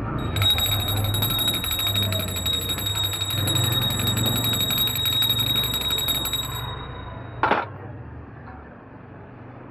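A bell ringing rapidly and continuously for about six and a half seconds, then stopping, followed by a single short sharp clink.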